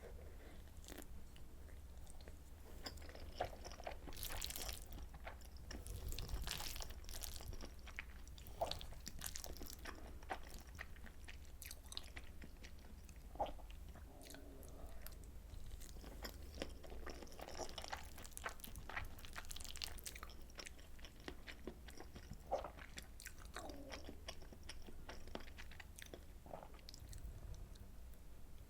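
Close-miked chewing and mouth sounds of someone eating soy sauce butter egg rice: a steady run of small wet clicks and smacks with brief louder crunchy bites.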